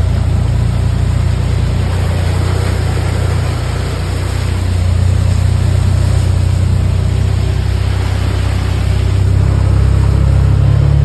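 A farm vehicle's engine running steadily while driving, heard from inside the cab as a low drone. It eases off slightly about three and a half seconds in, then picks up again.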